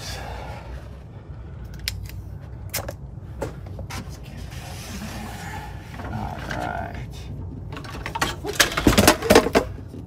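Objects being handled and moved about on a workbench: scattered light clicks and knocks, then a loud burst of rubbing and scraping near the end, over a steady low hum.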